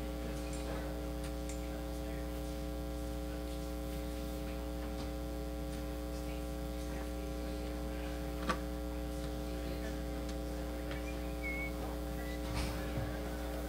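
Steady electrical mains hum, several even tones held at one level throughout, with a faint click about eight and a half seconds in.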